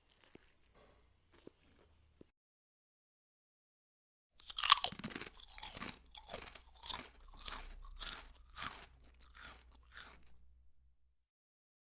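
Faint chewing, then after a pause of about two seconds, a person chewing crunchy food with loud crunches, about ten chews a little over half a second apart. The first crunch is the loudest, and they grow weaker toward the end.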